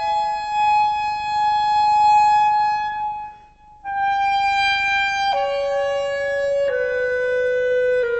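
Background music: a slow solo wind-instrument melody of long held notes, stepping down in pitch, with a brief pause a little after three seconds.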